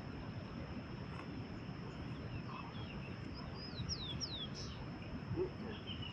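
A bird calling a quick series of about four downward-sliding whistled notes about halfway through, over steady outdoor background noise.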